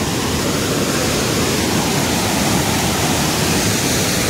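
Dhuandhar Falls on the Narmada river: white water pouring and churning through a rocky gorge, a loud, steady rush of water.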